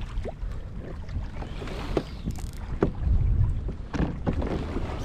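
Wind rumbling on the microphone and water moving around a kayak at sea, with a few light knocks from the kayak or gear.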